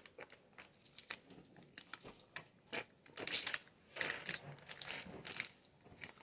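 Eating from a plastic-sleeved freeze pop: faint crinkling of the plastic sleeve and small crunching and sucking sounds, as irregular little clicks that come thicker about halfway through.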